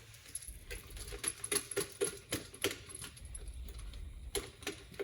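Irregular light metallic clinks and taps, a few a second, as small metal parts are handled.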